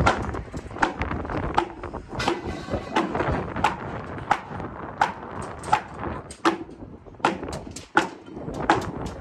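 Sharp knocks and clanks from work on steel rebar column cages and formwork, coming about one to two a second over a low background rumble.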